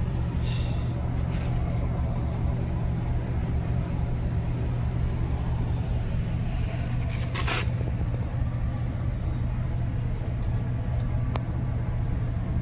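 Vehicle engine running steadily at a constant pitch, with a short burst of hiss about seven seconds in.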